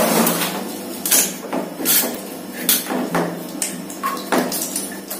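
Old plastic water tap being twisted off a wall pipe by hand: a string of irregular sharp clicks and knocks as it is handled and turned.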